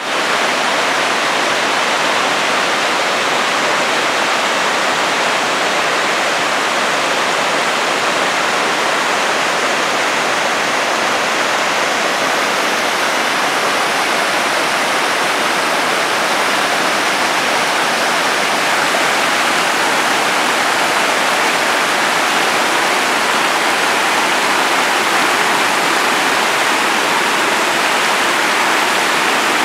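Mountain stream rushing down small cascades over boulders: a steady, loud rush and splash of white water.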